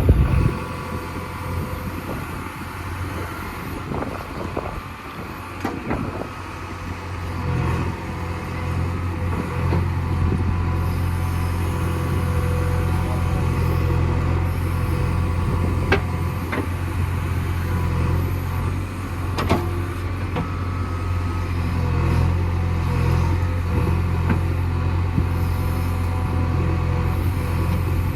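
JCB 3DX backhoe loader's diesel engine running steadily, rising to a louder working pitch about seven seconds in, with a couple of sharp knocks later on.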